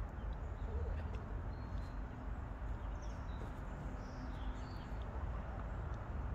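Chickens pecking feed from a plastic bowl: scattered faint clicks of beaks on the bowl over a steady low rumble, with faint bird chirps about halfway through.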